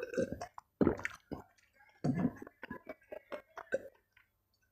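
Close-miked gulping and swallowing of a drink from a glass: a string of wet swallows, the loudest in the first two seconds and softer ones after.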